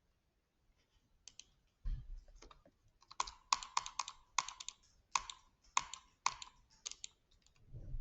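A series of sharp clicks, many in quick pairs or triples, coming about every half second from about three seconds in, with a soft low thump near two seconds and another near the end.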